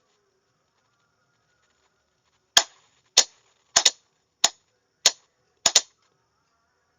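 Sharp clicks from Morse code being sent for receiving practice. There are eight of them at uneven spacing, starting about two and a half seconds in, with two close pairs.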